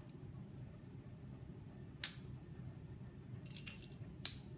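Metal carabiners clinking and clicking as a rope lanyard is handled. There is a sharp click about two seconds in, a quick cluster of clinks around three and a half seconds, and another click just after four seconds.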